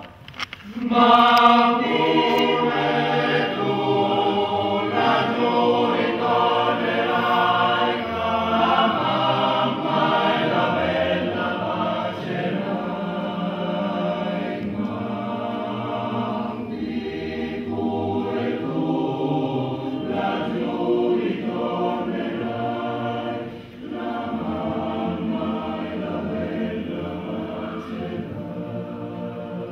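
Men's choir singing in harmony, many voices holding long notes together. The singing drops out briefly at the start and comes back strongly about a second in, with a short dip in level about three quarters of the way through.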